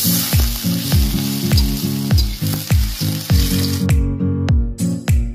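Sliced onions sizzling in hot mustard oil in an iron kadai as they are stirred, the frying hiss stopping about four seconds in. Under it runs background music with a deep beat about twice a second.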